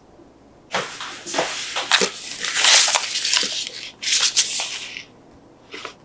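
Thin clear plastic disposable piping bag crinkling and rustling as it is handled and opened out, in a run of about four seconds, then two brief rustles near the end.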